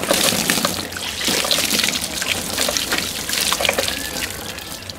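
Water poured from a plastic dipper splashing over a slaughtered duck's feathers, beginning suddenly and easing to a lighter splash and drip near the end. It is the plain-water rinse of the carcass before scalding for plucking.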